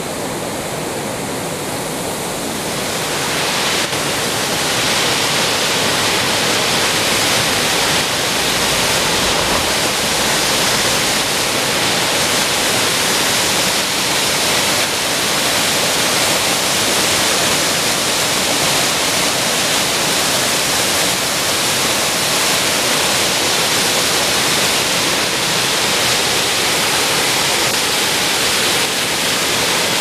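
Waterfall: water falling down a rock face and rushing over boulders, a loud, steady rushing noise that grows a little louder a few seconds in.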